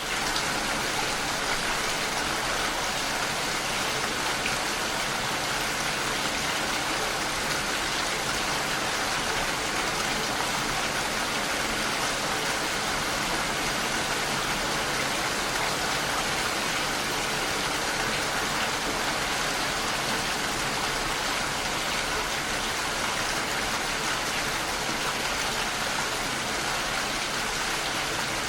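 Steady rainfall, an even hiss of drops falling with no thunder. It fades in at the very start, then holds unchanged.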